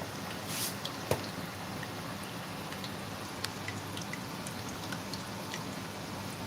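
Puff puff batter deep-frying in hot vegetable oil: a steady sizzle with many small scattered crackles and pops.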